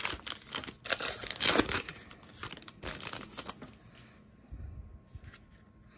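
Trading-card pack wrapper crinkling and tearing as a new pack of basketball cards is opened: a run of dense rustles and rips, loudest in the first two seconds, dying down to light handling after about four seconds.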